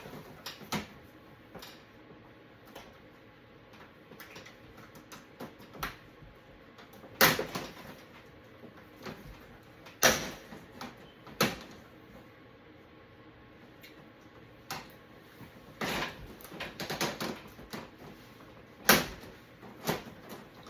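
Scattered sharp clicks and knocks of hands working the plastic bezel off a flat-screen TV, with the loudest snaps about seven, ten, eleven and nineteen seconds in and a quick run of clicks around sixteen to seventeen seconds.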